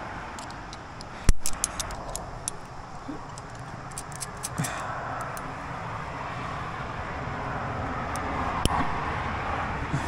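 Metal climbing gear clinking: carabiners and quickdraws knocking against each other and the anchor chain as they are handled. One sharp clack about a second in, a quick run of lighter clinks after it, and single clicks around the middle and near the end, over a steady rushing background.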